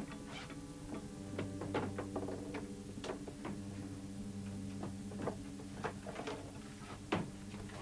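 Irregular light knocks and clatter of food, bowls and utensils being handled on a wooden table, with paper or cloth being handled among them, over a steady low hum.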